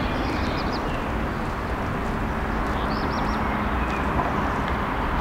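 Steady outdoor street ambience: an even low rumble, with a few short high chirps about a third of a second in and again about three seconds in.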